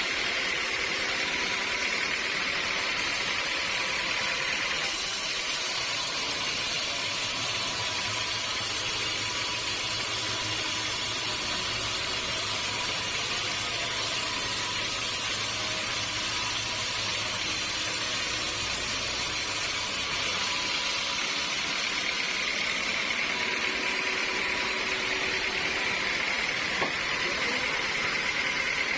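Sawmill machinery running with a steady mechanical hum and hiss; a deeper hum comes in about seven seconds in and fades out around twenty seconds in.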